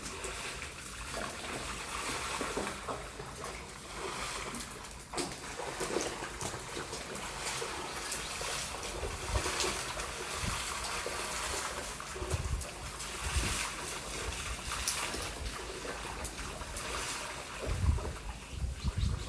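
Shallow floodwater splashing and trickling, with low rumbles around the middle and again near the end.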